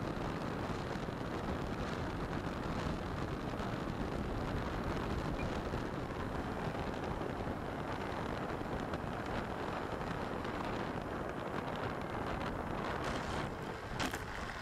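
Steady rush of air over a microphone mounted on an E-flite Timber X RC plane as it descends to land. About 14 seconds in there is a sharp knock as the landing gear touches down on dirt.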